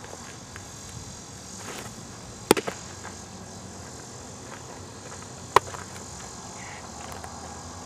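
A baseball pitch smacking into a catcher's leather mitt about two and a half seconds in, followed by a second sharp leather pop about three seconds later as the ball is caught again. Steady outdoor hiss underneath.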